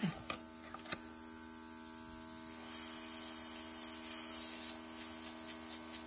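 Luminess airbrush makeup air compressor running with a steady electric hum. A few light clicks come in the first second, and from about two seconds in the hiss of air from the airbrush gun comes up a little.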